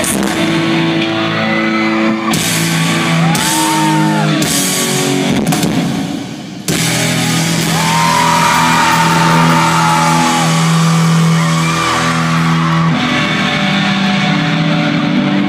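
Live rock band playing with electric guitars and vocals, heard from the crowd in a large hall. The band briefly thins out about six seconds in, then comes back in at full volume.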